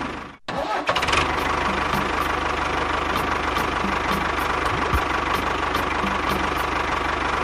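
Tractor engine idling steadily with a low, even chug. It cuts out briefly about half a second in, then runs on unchanged.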